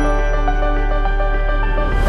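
Background music: a slow new-age piece of long held tones over a steady bass, with a few notes changing.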